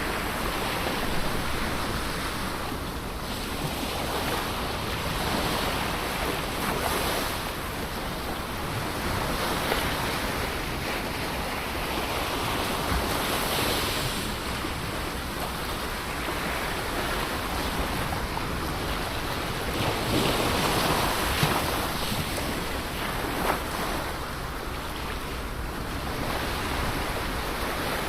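Ocean waves breaking and washing on the shore, a continuous surf hiss that swells and eases every few seconds, with wind on the microphone.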